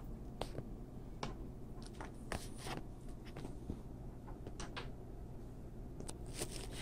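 Faint, scattered light crinkles and clicks over a low steady hum: hands handling shredded cheese and a thin aluminium foil baking pan.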